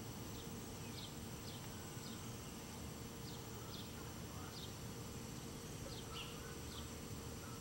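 Wild turkey poults peeping: about ten short, high, falling peeps at uneven intervals, over a steady low background hum.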